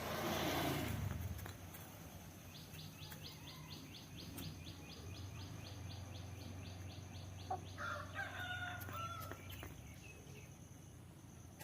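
Chickens calling: a loud, rough burst of sound in the first second or so, then a fast run of short high peeps about five a second, then a pitched, drawn-out call about eight seconds in.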